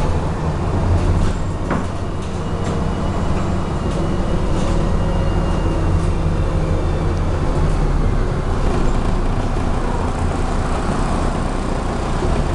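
Ride inside a moving MAZ-107 diesel city bus: a steady low engine drone with road noise, and a few faint knocks from the body.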